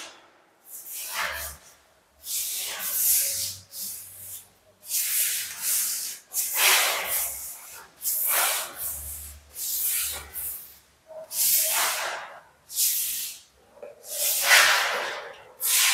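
Wide paint brush swishing across a wall in repeated strokes, spreading thick primer. The strokes come about one a second with short pauses between them.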